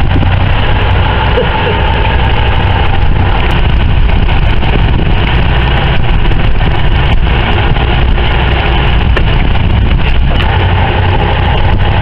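Fishing boat's engine running steadily at idle, a loud constant low hum with the hiss of wind and sea over it.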